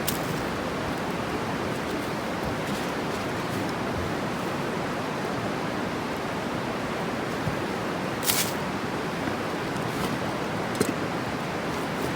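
Wood fire burning with a steady rushing hiss and a few sharp pops, the loudest about eight seconds in.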